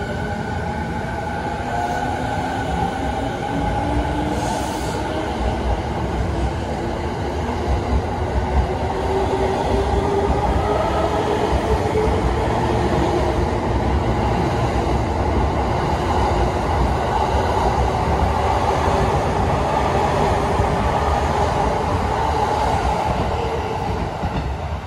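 JR East E217 series electric train pulling away: the motor and inverter whine climbs in pitch as it gathers speed, over a rumble of wheels on rails that grows louder as the cars run past.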